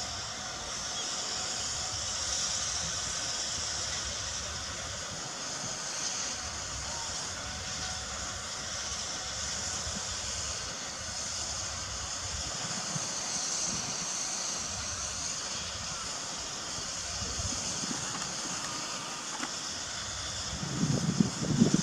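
C12-class tank steam locomotive standing with steam up, giving a steady high hiss of escaping steam. Low, irregular rumbling thumps come in near the end.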